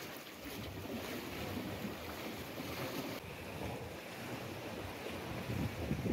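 Sea washing against the rocks below, with wind rumbling on the microphone.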